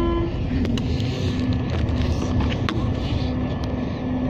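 Tour bus driving, heard from inside the cabin: a steady low engine and road rumble with a constant hum, and a few light clicks.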